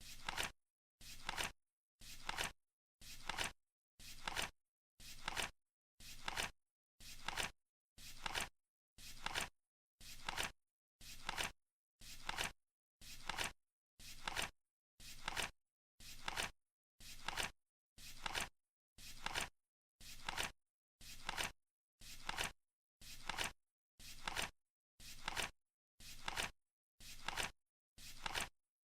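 Flip-clock sound effect: the digit card flipping once a second, each flip about half a second long and growing louder to a sudden stop, with dead silence between.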